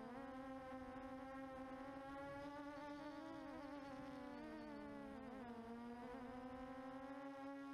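QAV400 quadcopter's motors and propellers buzzing steadily, the pitch wandering up and down as the throttle changes, with a dip about five seconds in.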